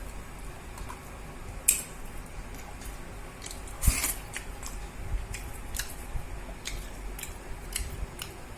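A person eating rice and chicken curry: chewing, with scattered small wet clicks and two sharper clicks, one just under two seconds in and one about four seconds in.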